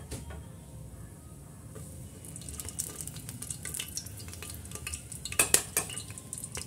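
Whole spices sizzling and crackling in hot oil in a steel pot, while a metal spoon stirs them and clinks against the pot. The crackling thickens about two seconds in, with a few sharp clinks, the loudest, near the end.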